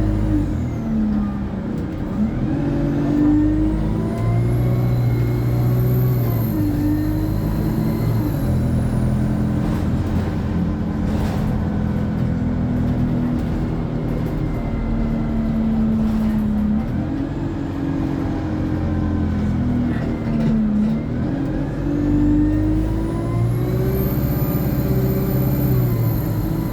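Alexander Dennis Enviro 200 diesel bus pulling away twice, its turbocharger whine rising high and then falling as the engine works, while the Allison automatic gearbox shifts through the gears. Between the two pulls the engine holds a steady note.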